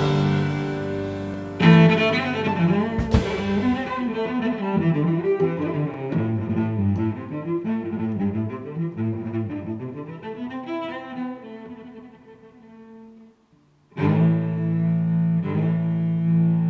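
Background music, a string-like melodic piece that fades away near the end, then after a brief pause a new piece of sustained low notes starts.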